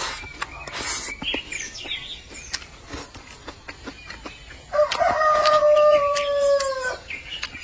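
A rooster crows once, about five seconds in: one long call of about two seconds that drops in pitch at the end, the loudest sound here. Around it, close-up clicking and smacking of someone eating.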